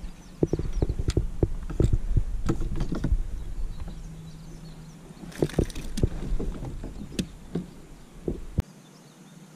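Irregular knocks and clatter of gear being handled aboard a Hobie Outback pedal kayak, over a low rumble. The knocks come thickest in the first few seconds and again about halfway through. The sound cuts off suddenly near the end, leaving a quieter hiss.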